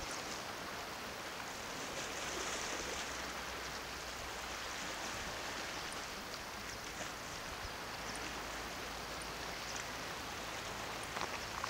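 Calm sea washing gently against the shoreline rocks: a steady, even hiss.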